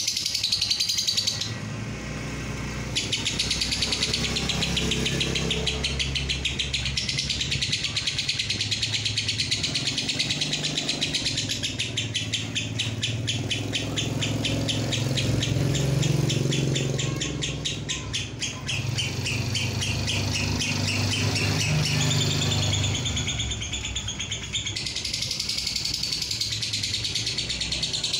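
Fischer's lovebird singing its long 'ngekek' chatter: a shrill, very rapid string of repeated notes running on with only one short break. Underneath is a low engine-like rumble.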